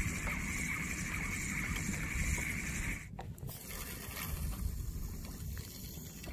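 Wind buffeting the microphone and water lapping and splashing against a small fishing boat's hull as it drifts. A steady high whine runs through the first half and stops about three seconds in.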